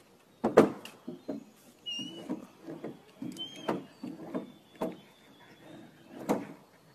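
A long wooden stick, held crosswise in a dog's mouth, knocking against the wooden railings of a narrow footbridge in several sharp knocks. Between the knocks come softer thuds of the dog's steps on the boards.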